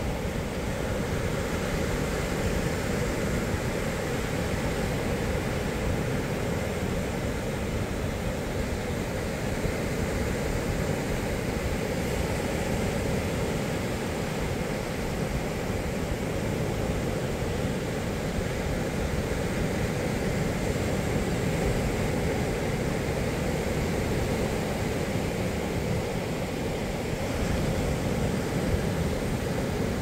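Surf breaking and washing up a sandy beach: a steady rushing noise with a heavy low rumble and no distinct single crashes.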